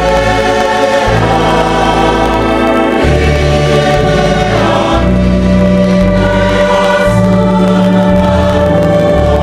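Church congregation singing a hymn in Samoan with organ accompaniment. The organ's held bass chords change about once a second.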